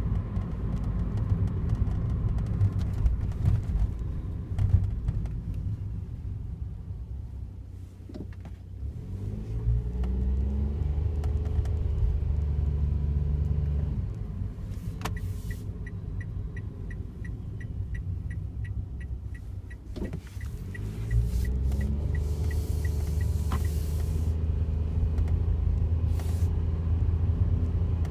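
Cabin sound of a Daihatsu Wake kei car on the move: a steady low rumble, with the engine note rising twice as the car pulls away. In the middle, a regular high ticking about three times a second runs for about eight seconds, starting and stopping with a single click.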